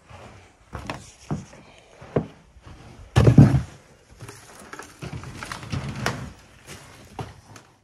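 Footsteps, then a loud thump and a rattle as a house's outer storm door is pulled open.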